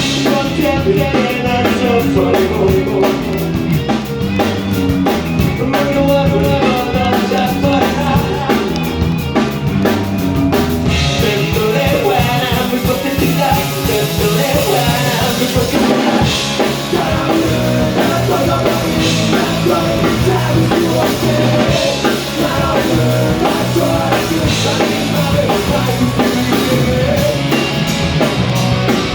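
Live rock band playing loudly, with a full drum kit keeping a steady beat under electric guitars and bass.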